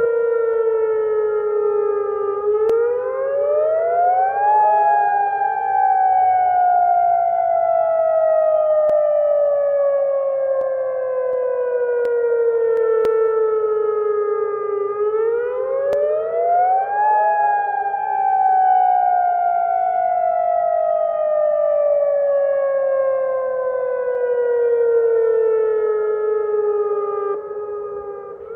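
Emergency-alert siren wailing. Its pitch climbs quickly for about two seconds, then slides slowly down for about ten seconds, and the cycle repeats, starting to climb again at the very end.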